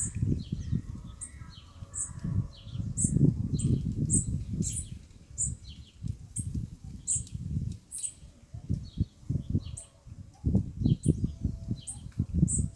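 Small birds chirping in short, high notes repeated every half second or so, over a louder irregular low rumble.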